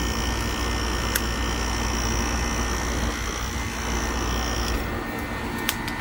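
The 120 V rotary compressor of a DIY heat pump runs with a steady hum and a high whine while pumping the refrigerant charge down and pulling the low side into vacuum. It shuts off abruptly about five seconds in. A couple of sharp clicks are heard, one early and one just after the shutoff.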